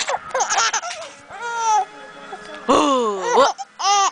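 Baby laughing in about five short, high-pitched bursts, the pitch sliding up and down within each.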